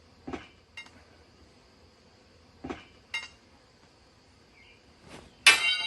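A metal bee scooper clinking twice in two quick pairs against the wall, then a loud clatter of several hits near the end as it knocks against a bar.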